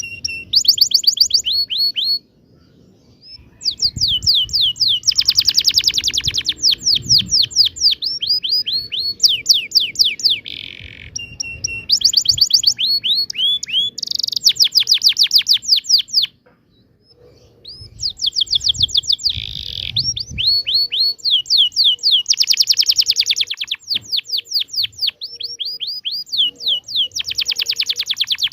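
Domestic canary singing long rolling trills: fast runs of repeated downward-sweeping notes, breaking off twice for about a second.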